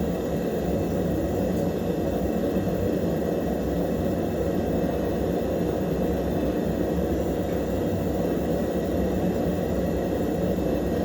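A forge running with a steady low roar, heating a forged knife blade for heat treatment.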